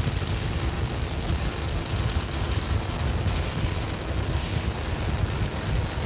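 Starship SN8 prototype's three Raptor rocket engines firing during ascent: a loud, steady, dense rumble with most of its weight in the deep low end.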